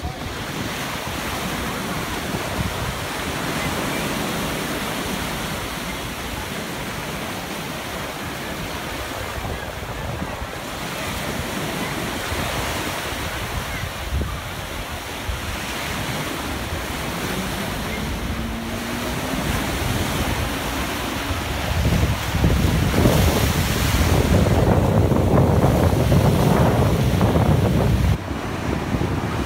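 Small waves breaking and washing on a sandy shore, with wind buffeting the microphone; the wind rumble grows louder about two-thirds of the way in. A faint rising engine note from the towing motorboat's outboard comes in around the middle.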